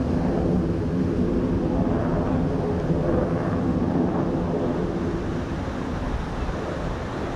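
Jet noise from an F-16C Fighting Falcon flying high overhead: a loud, steady rumble that eases slightly near the end.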